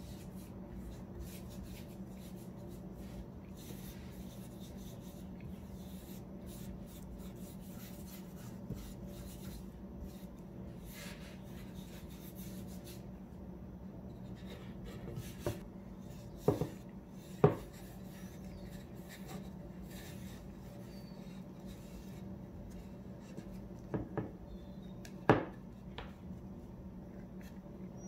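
Wood stain being wiped into a plywood board by a gloved hand with a cloth: soft rubbing and scuffing strokes, then a handful of sharp knocks of the board on the wooden workbench as it is turned over and handled, over a steady low hum.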